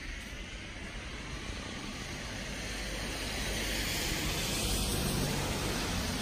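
Steady rushing outdoor noise with a low rumble, growing louder from about three seconds in.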